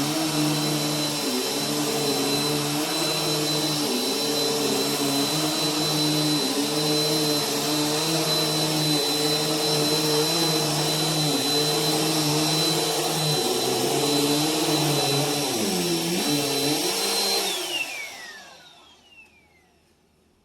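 Bissell vacuum cleaner running on carpet, its motor note dipping every second or two under changing load. About three-quarters of the way in it is switched off, and the motor winds down with a falling whine.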